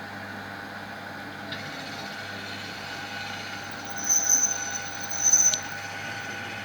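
Small electric drill run in two short bursts, a steady high-pitched whine each time, over a low steady hum.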